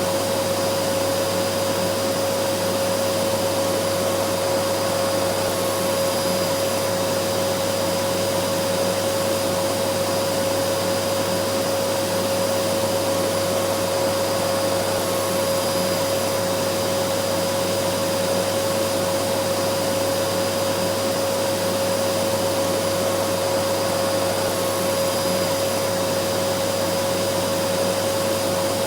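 Vacuum cleaner running steadily, its motor giving a constant whine over a whooshing airflow noise, with no change in pitch or level.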